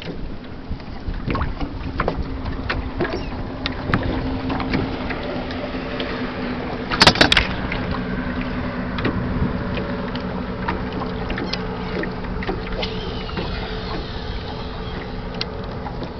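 Choppy water slapping and lapping against the hull of a 14 ft Monark aluminium fishing boat, with a steady low engine hum under it. A sharp, loud clatter about seven seconds in.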